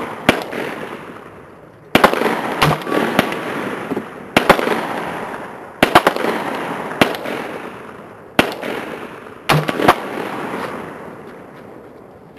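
Rifle shots, about a dozen at irregular intervals, some nearly overlapping as if from more than one shooter, each followed by a long echoing decay.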